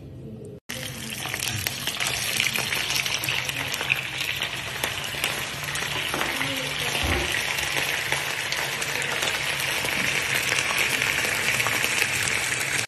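Raw potato sticks frying in hot oil and ghee in a frying pan: a steady, dense sizzle with fine crackles, starting abruptly about half a second in.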